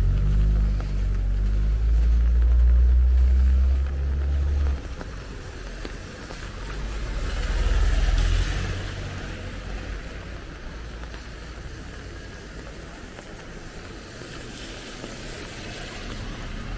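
A motor vehicle's engine rumbling close by, dropping away sharply about five seconds in; a car then swells past with tyre hiss on the wet street around eight seconds in, over a steady hiss of rain.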